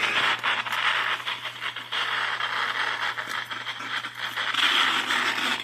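Static from a handheld radio's speaker: a rushing hiss with frequent crackles and pops that varies in strength, over a faint steady hum.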